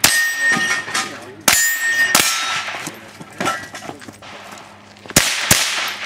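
GSG-5 .22 LR rifle fired in an uneven string of shots, with a gap of over a second near the middle. Steel targets ring with a clear tone after several of the hits.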